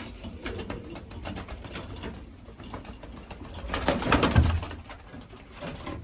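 Young racing pigeons cooing, with many small clicks and scuffles from their feet and wings, and one louder rustle and thump about four seconds in.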